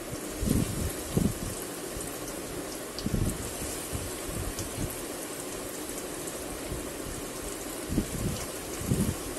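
Paneer cutlets deep-frying in hot oil in a kadhai: a steady sizzle and crackle, with a few dull thumps, three in the first few seconds and two near the end.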